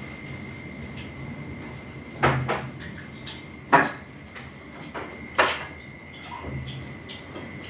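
Utensils clinking against a soup bowl: a few sharp clinks, the first two close together, then single ones about a second and a half apart.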